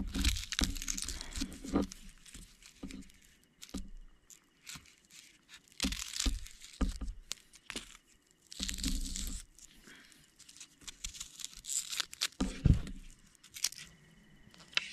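Red onions being peeled and cut by hand with a knife: dry papery skins crackle and tear in irregular bursts, with sharp knife clicks and taps on the tabletop between them.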